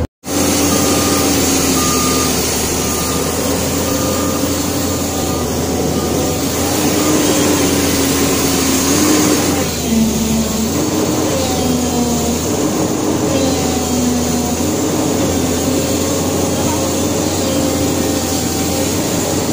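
JCB JS205 excavator's diesel engine running steadily on its first running test after being submerged in peat, its pitch shifting slightly and dipping briefly about ten seconds in.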